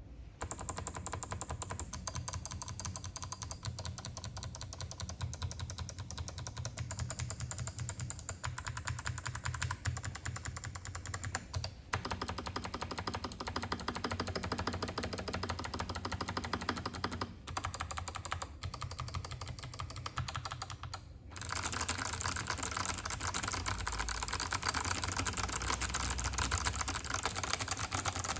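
Mechanical keyboard with stock Kailh Box Navy clicky switches being typed on steadily: a dense stream of sharp key clicks with a few brief pauses, growing louder about three-quarters of the way through.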